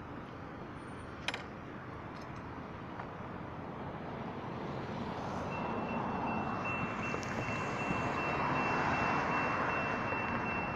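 Road traffic passing a grade crossing, with a sharp click about a second in. About five and a half seconds in, the crossing's NEG electronic bell starts ringing, a steady high tone, as the warning signals activate for an approaching train.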